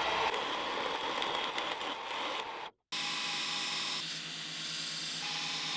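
Desktop CNC mill machining aluminium with a single-flute end mill: steady spindle and cutting noise, broken by a short gap about three seconds in, after which a steadier tone from the spindle runs on.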